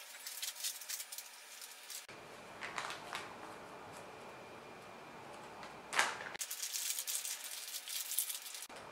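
A small plastic bag holding metal monopod feet being handled: plastic crinkling with a light rattle of the metal parts, in bouts that are busiest at the start and again from about six seconds in.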